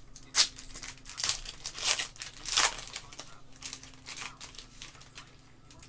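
Shiny foil wrapper of a trading card pack being torn open and crinkled by hand, in a run of irregular crackles that thin out over the last couple of seconds.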